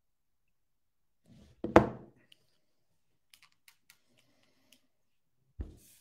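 A loud thump close to the microphone, followed by a few faint light clicks, then another, softer thump near the end: handling noise from someone at a desk.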